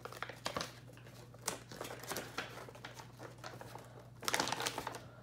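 Crinkling and rustling of a small L.O.L. Surprise packaging wrapper as it is opened and unfolded by hand, with a louder patch of crinkling about four seconds in.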